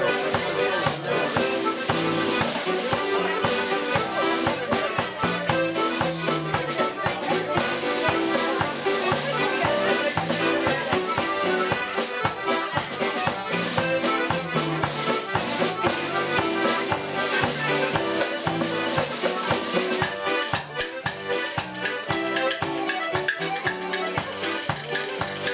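Button accordion playing an Irish traditional tune, with a snare drum played with sticks keeping the beat. The drum strokes stand out more over the last few seconds.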